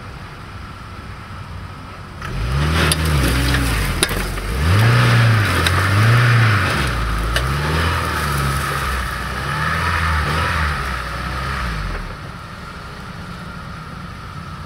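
UAZ Patriot's engine revving hard in about five rising and falling surges while the SUV is wedged nose-down in a ditch, with a rushing hiss and a few sharp cracks over it, then settling back to a quieter idle near the end.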